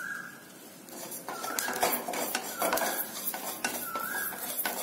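A wooden spatula stirs cumin seeds dry-roasting in a nonstick pan, the seeds scraping and rattling against the pan from about a second in. A short rising squeak from the spatula scraping the pan comes back every second or so.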